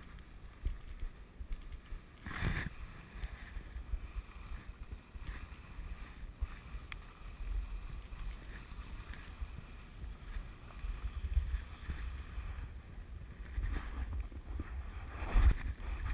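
Wind rumbling on a GoPro's microphone while a rider slides over snow, the edges hissing and scraping, with a louder swish about two and a half seconds in and another near the end.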